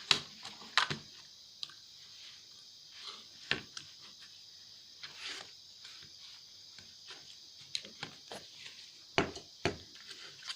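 Irregular clicks and knocks of a hand tool working against the hard plastic case of a laptop battery pack as it is pried at, with a few louder knocks near the start, one around three and a half seconds in and two more close together near the end.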